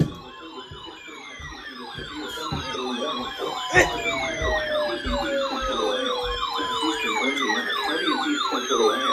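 Several emergency-vehicle sirens sounding at once, fast yelping sweeps over slower falling wails, growing louder over the first few seconds. A sharp crack cuts through them about four seconds in.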